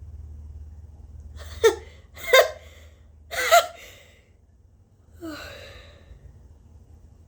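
A woman's high-pitched, voiced gasping inhales, three in quick succession, building up toward a sneeze from an allergy-irritated nose, followed by a softer sighing breath out.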